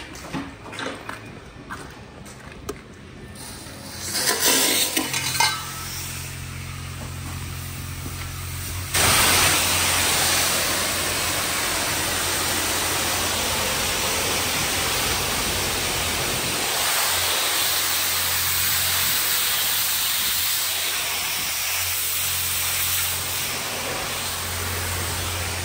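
Car wash high-pressure wand spraying water onto a vehicle: a steady loud hiss that starts suddenly about nine seconds in, over a low hum. Before it, scattered knocks and clatter.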